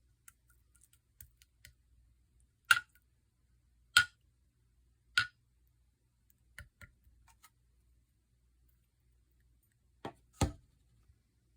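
Sharp clicks at irregular intervals: three loud ones a little over a second apart in the first half, faint ticks between, and a click followed by a duller knock near the end.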